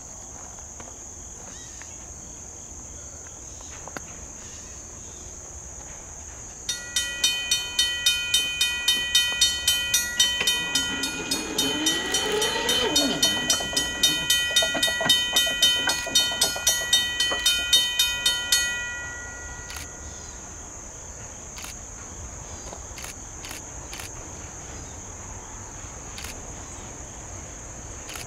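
A railroad bell clanging about twice a second for roughly twelve seconds, then stopping, over a steady drone of crickets. Midway through, low tones glide down and up beneath the bell as the train passes. Faint scattered clicks follow.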